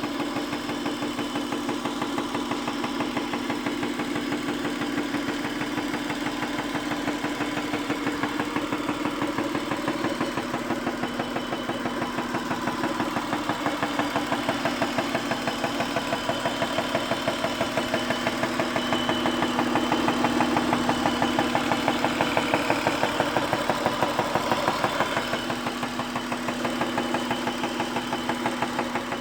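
Acura engine idling with a fast, steady ticking, the unexplained tick that the owner is asking for help with.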